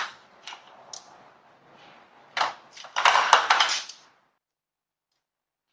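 A dog working at a hard plastic object on a wooden floor: a run of clicks and clatters, sparse at first and then busy and loud for about a second and a half, stopping about four seconds in.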